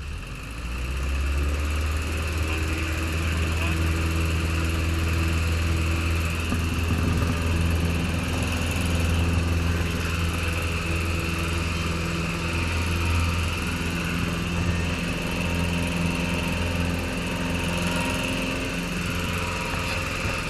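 Light aircraft's piston engine and propeller running. Power comes up about a second in, then holds at a steady, fairly loud level.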